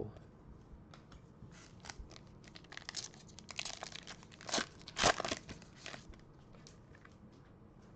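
Plastic trading-card pack wrappers crinkling and tearing as card packs are opened and handled, in a run of rustles and clicks that is loudest about five seconds in.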